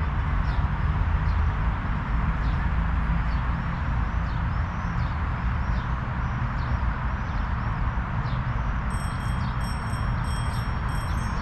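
Wind buffeting the microphone as a steady rushing rumble, with small birds chirping over and over. Near the end a high, ringing tone starts, pulsing a little over once a second.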